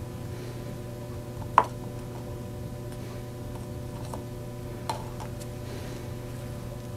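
Two sharp clicks of small hand work at a workbench, the first loud about a second and a half in and a weaker one near five seconds, with a few fainter ticks. A steady low hum runs under them.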